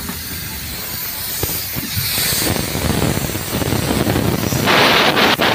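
Wind buffeting the microphone: a steady rushing noise that turns much louder about four and a half seconds in, with brief breaks.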